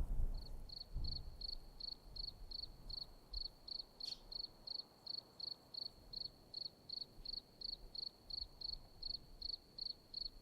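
A cricket chirping steadily: short, even chirps at one high pitch, about four a second.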